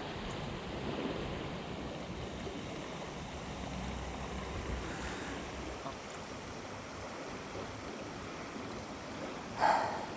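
Steady rush of flowing river water, with a short louder sound near the end.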